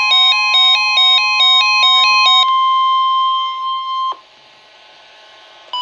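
Emergency weather alert tone: a steady 1050 Hz warning alarm tone of the kind NOAA Weather Radio sounds before a warning, overlaid for the first two and a half seconds by a rapid two-note electronic beeping. The tone cuts off suddenly about four seconds in, leaving faint hiss, with a short blip near the end.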